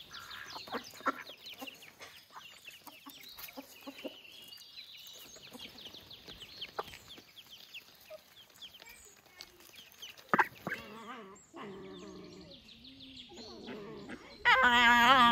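Chickens clucking, with many short high chirps and a few scattered clicks. Near the end a loud call with a wavering pitch begins.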